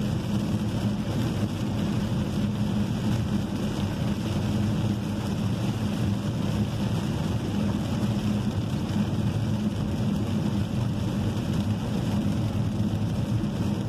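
Steady car-interior noise while driving in heavy rain: a low drone of engine and tyres on the wet road with an even hiss of water over it.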